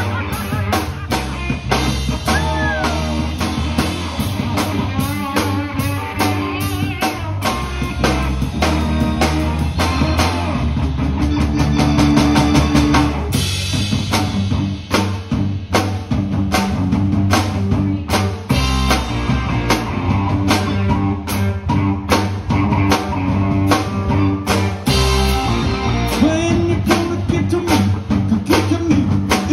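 Live rock band playing, led by a drum kit with bass drum, snare and cymbals, and electric guitar over a steady low bass line.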